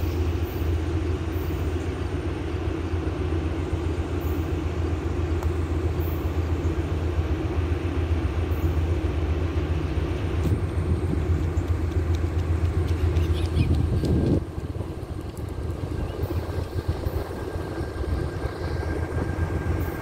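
Steady low engine rumble that cuts off abruptly about fourteen seconds in, leaving quieter background.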